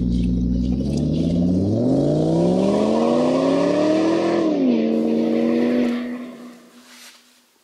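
An engine revving: a low rumble at idle, then the pitch climbs for about two and a half seconds, drops back and holds steady before fading out near the end.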